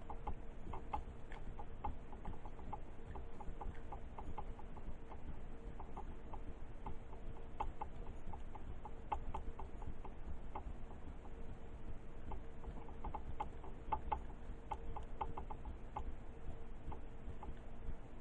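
Lock rake being worked in and out of a five-pin Brinks pin-tumbler lock: a stream of light, irregular metal clicks and ticks as the pins are bounced, over a faint steady hum.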